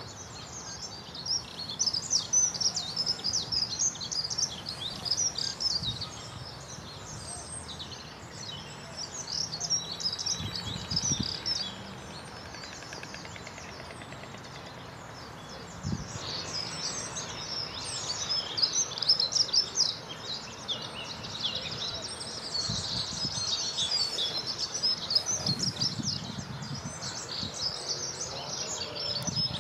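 Small songbirds singing and chirping in a dense chorus of quick high calls, which thins out for a few seconds in the middle.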